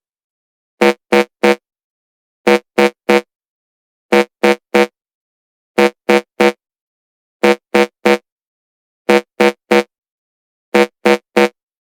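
Electronic dance-remix intro: a short pitched synth stab played in quick groups of three notes, each group repeated about every second and a half with silence in between.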